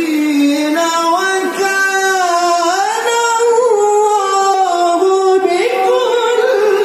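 Male qari's voice reciting the Quran in melodic tilawah style into a microphone, drawing out one long ornamented phrase in a high register without a breath. The pitch climbs about three seconds in and again near the end.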